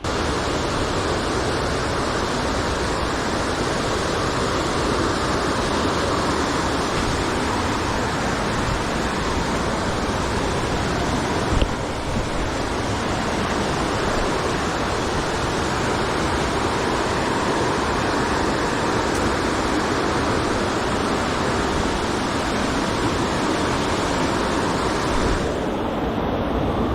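Steady rushing of flowing water from a jungle stream, with a short knock about halfway through.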